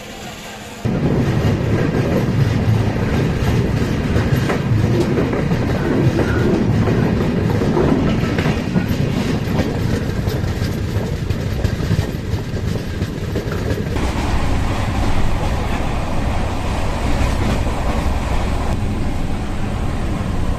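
Noise of an LHB passenger coach of the Kovai Express running on the rails, heard from the open doorway as the train moves off from the station; a loud, steady noise that begins suddenly about a second in.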